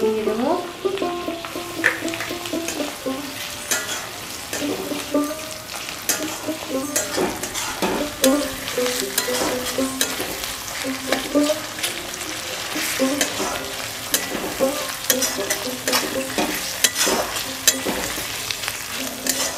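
Metal spatula stirring and scraping chopped tomatoes and spice paste frying in mustard oil in a kadai, with a steady sizzle and repeated scrapes against the pan. A soft melody plays underneath.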